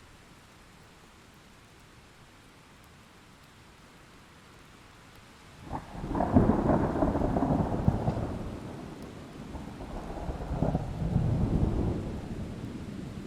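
Thunderstorm: steady rain hiss, then about halfway a sharp crack of thunder that opens into a long rolling rumble, with a second rumble swelling and fading a couple of seconds later.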